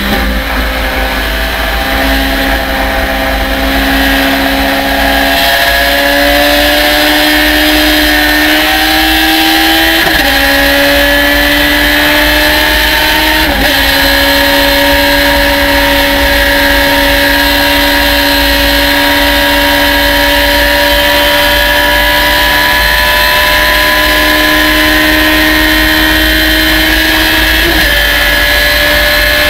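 Race car engine heard from the open cockpit under full throttle. Its pitch climbs steadily and drops sharply at three upshifts, about ten seconds in, about thirteen seconds in and near the end, as the car pulls from about 75 to over 110 mph.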